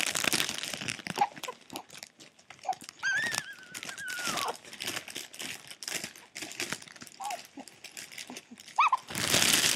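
Plastic packaging crinkling and rustling as a hair bundle is unwrapped, with a few short high-pitched whines in between and a louder rustle near the end.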